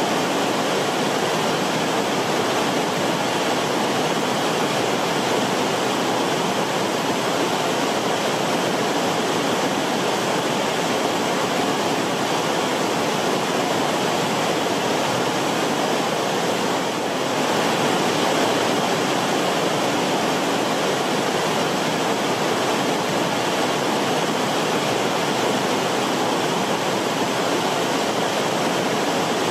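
River water rushing, a steady even wash of sound with no separate splashes or gurgles standing out.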